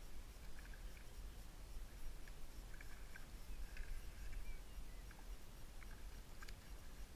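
Low wind rumble on the microphone, with faint scattered high chirps and a few light clicks.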